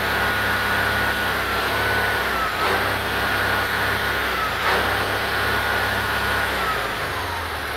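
MAN 19.464 truck's diesel engine running at raised revs with a steady high whine over its low hum. The whine dips briefly twice, and near the end it falls away as the revs drop back toward idle.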